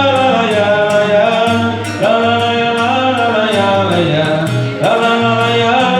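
A male voice singing a wordless 'la la la' refrain in long gliding phrases over guitar accompaniment, pausing briefly about two seconds in and again near five seconds.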